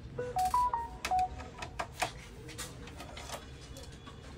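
A short electronic tone melody, a quick run of five or six stepped beeps rising and falling, in the first second or so, like a phone notification tone. Scattered sharp clicks and taps of tools on the printer's metal chassis and screws follow.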